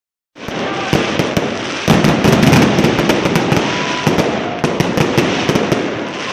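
Many fireworks and firecrackers going off at once: a continuous crackling din with frequent sharp bangs, loudest about two seconds in.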